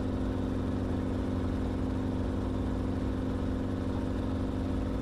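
Enstrom helicopter in cruise flight: a steady drone of engine and rotor, several constant tones with no change in pitch or level.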